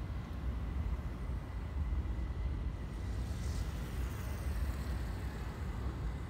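Road traffic at a city intersection: a steady low rumble of cars driving past, with a motorcycle going by about halfway through.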